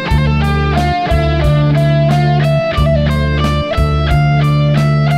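Lead electric guitar on a Stratocaster-style instrument playing long held notes with string bends, over a backing track of drums, bass and synth pad.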